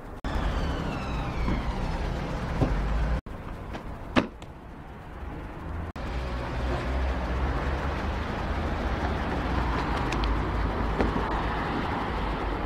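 Wind rumbling on a phone microphone with road traffic noise, broken by a couple of abrupt cuts where the sound drops out. Near the start a falling whine passes, and about four seconds in there is a sharp click.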